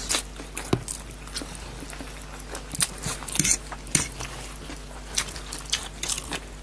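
People chewing and slurping buff chow mein noodles and sausages, with irregular sharp mouth smacks and clicks.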